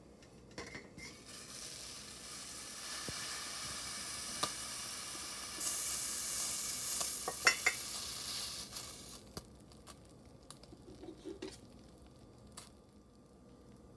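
Rice cooking in a Tatung rice cooker's stainless steel pot, giving off a sizzling steam hiss that builds over the first few seconds and dies away after about nine seconds. A few sharp metallic clicks come from the lid and pot about seven and a half seconds in, and fainter ticks follow near the end.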